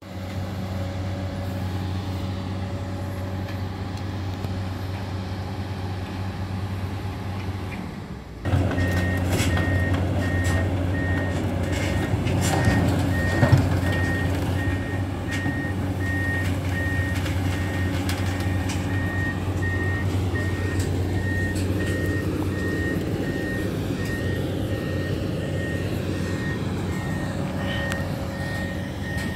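Diesel engine of a 20-ton amphibious excavator with a Komatsu PC200 upper running steadily. About eight seconds in it grows louder and the travel alarm starts beeping over and over as the machine crawls on its pontoon tracks, with a few clanks shortly after.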